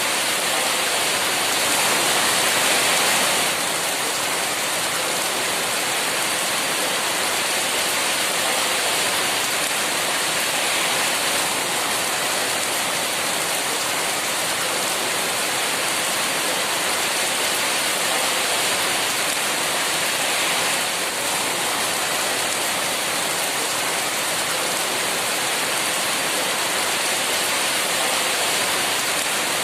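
Heavy rain falling steadily, a dense, even hiss of downpour that swells slightly about two seconds in.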